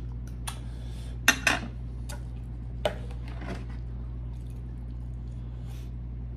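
Table knife clicking and scraping against a crisp tostada and a ceramic plate: a few sharp clicks in the first three seconds, the loudest about a second in, then the knife laid down on the plate.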